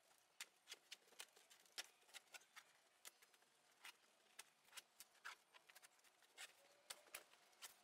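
Faint, irregular clicking and crackling, a few sharp clicks a second, from wall fabric being pulled out of the FabricMate plastic track on a frame.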